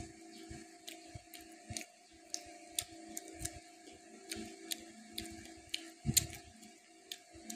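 Close-up eating sounds as rice and chicken are chewed: a string of small irregular wet clicks and lip smacks, the loudest about six seconds in, over a steady low hum.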